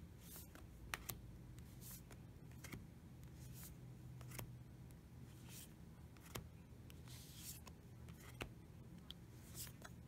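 Faint handling of a deck of matte oracle cards: cards slid off the front of the deck one by one, each a soft papery swish or a light click, every second or two, over a low steady hum.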